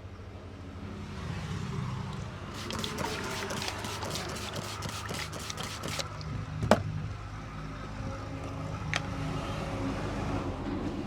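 Steady hum of road traffic with an engine running, under a run of quick taps for a few seconds. About two-thirds of the way in comes one sharp crack, the loudest sound, and a smaller click follows a couple of seconds later.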